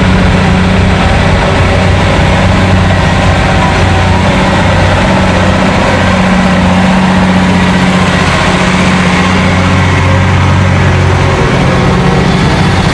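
New Holland T7 farm tractor's diesel engine running steadily under load, a loud, low, even drone, as it drags a weight-transfer sled along the pulling track.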